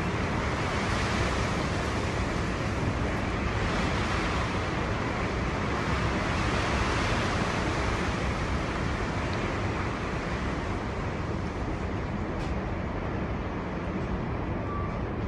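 Storm-force wind rushing in gusts, a steady roar that swells and eases and drops back a little near the end.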